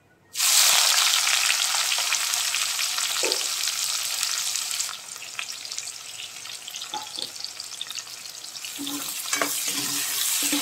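Sliced onions dropped into hot oil in a kadhai, sizzling loudly as soon as they land about half a second in and easing off after about five seconds. A few light knocks and scrapes of a spoon stirring them in the later part.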